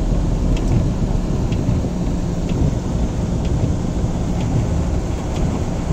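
Heavy thunderstorm rain and the rumble of a car driving through deep flood water, heard from inside the car. A faint tick repeats about once a second throughout.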